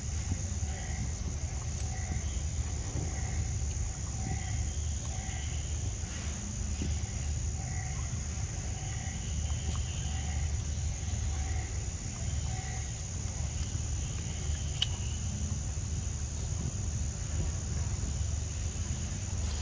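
Outdoor ambience: a steady high insect drone over a low rumble, with a short call from a small animal repeating about once a second that stops about two-thirds of the way through.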